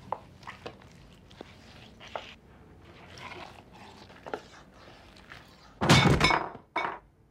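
Light clinks and scrapes of a carving knife and fork and dishes at a dinner table, then about six seconds in a loud crash and thud as a boy collapses at the table in a panic attack, with a second, shorter knock just after.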